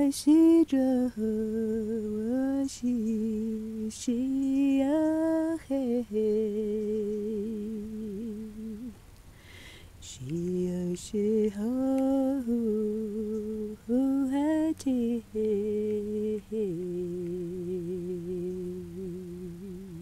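A voice humming a slow, wordless tune in long held notes that waver in pitch, in two long phrases with a pause of about a second near the middle.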